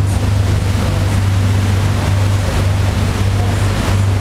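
Bateau-mouche tour boat's engine running with a steady low hum, under a continuous rush of wind and water.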